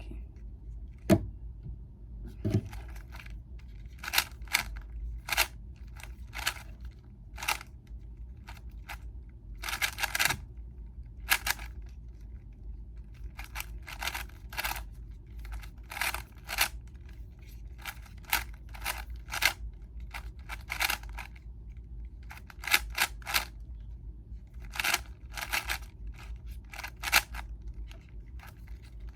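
GAN 11 M Pro magnetic 3x3 speedcube being turned fast during a timed solve. Quick runs of clicky, scraping turns come in bursts, separated by short pauses.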